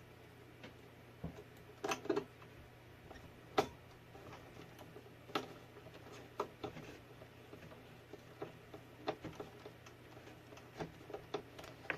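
Small irregular clicks and taps from hand work on a scale RC rock crawler, fastening the body to the chassis with small screws and a screwdriver.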